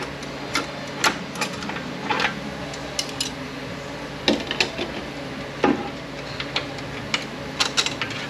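Metal transmission parts, clutch plates among them, clinking and clanking irregularly as they are handled, lifted out and set down. There are about a dozen sharp knocks, a few of them ringing briefly.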